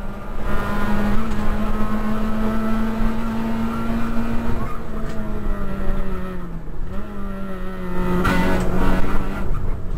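Peugeot 106 rally car's four-cylinder engine running hard at high revs, heard from inside the caged cabin. The pitch holds nearly steady, dips briefly about six and a half seconds in, then pulls steady again; a short rush of noise comes a little after eight seconds.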